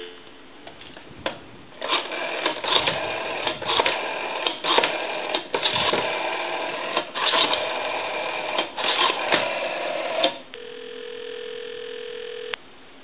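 A Western Electric 554 rotary telephone's dial being turned and let return for several digits, the dialing heard as choppy, irregular sound over the line. After that comes a single steady ringback tone lasting about two seconds, the sign that the called line is ringing.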